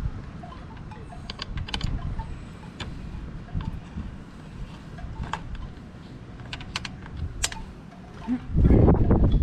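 Scattered light metal clicks and taps of hand tools on bolts as fasteners are tightened, over a steady low rumble. A much louder low rumble comes in near the end.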